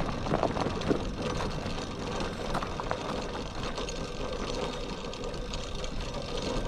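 A mini bike's small single-cylinder engine running steadily, with a few clicks in the first second. Its carburettor has just been rejetted but is still running lean.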